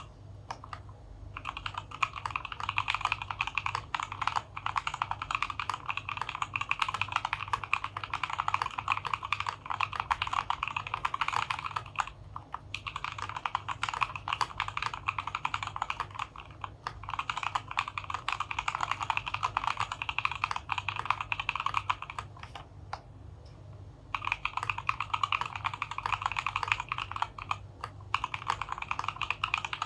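Fast typing on a DZ60 60% mechanical keyboard in a wooden case, fitted with Gateron Milky Black linear switches, XDA keycaps, lubed stabilizers and foam and tape dampening. The keystrokes come as a dense run of clicks, broken by short pauses about a third of the way in, around three-quarters of the way in and once near the end.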